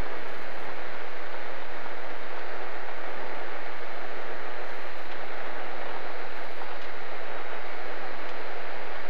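Steady engine and propeller noise of a Grumman single-engine light airplane, heard inside the cabin as it taxis at low power.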